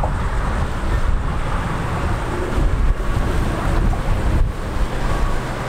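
Wind buffeting the microphone in a loud, gusty rumble, with the drone of motorboats running on the water.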